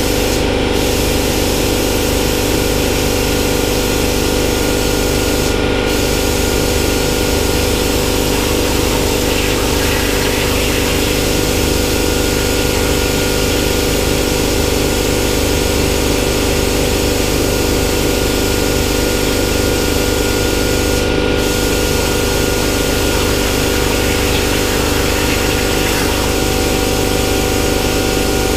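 Hypertherm 65 plasma cutter on a CNC plasma table cutting steel sheet: a loud, steady hiss of the arc and air with a steady hum underneath. The hiss breaks off briefly three times.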